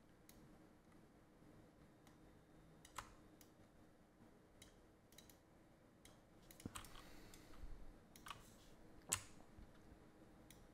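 Faint clicks of a computer mouse and keyboard, about a dozen at irregular intervals, over quiet room tone.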